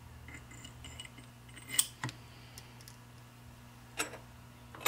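Light metallic clicks and ticks as a keyed steel thrust washer is fitted onto the splined pinion shaft of a tractor pinion assembly, with sharper clicks about two seconds in and again near the end, over a steady low hum.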